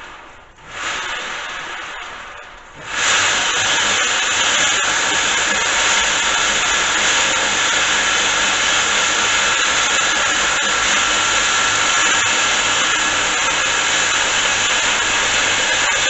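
Homemade 2x72 belt sander started twice in quick succession, each time spinning up and coasting down, then switched on and left running steadily from about three seconds in, a loud, even noise with a faint steady whine.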